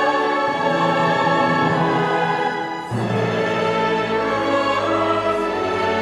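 Choir singing with a small orchestra of strings and clarinets, holding sustained chords. There is a brief dip just before three seconds in as a new chord begins.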